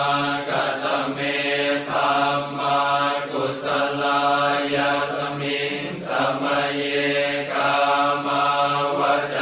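Thai Buddhist funeral chant: voices chanting in unison on one low held note, in phrases of a second or two with brief breaks between them.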